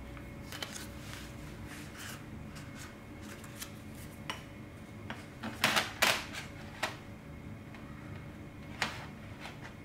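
A thin, homemade aluminium-sheet windscreen being handled and wrapped around a brass Trangia alcohol burner, with light crinkling and scattered sharp clicks and crackles of the metal. The loudest crackles come in a cluster a little past the middle, with single clicks near the end.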